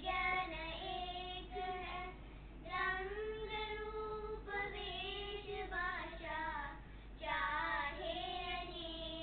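Three young girls singing together, long held notes in phrases with brief pauses for breath between them.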